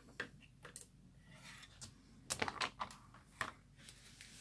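Light clicks and taps of plates and sheets being handled and set down on a hot-foil press's plastic platform: scattered single clicks with a quick run of several about halfway through.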